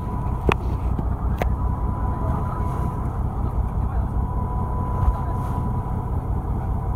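Fishing boat's engine running steadily, a low rumble with a thin steady whine over it. Two sharp clicks come within the first second and a half.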